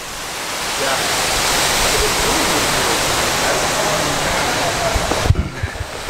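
Wind rushing over the microphone, building over the first second into a steady rush and cutting off suddenly near the end.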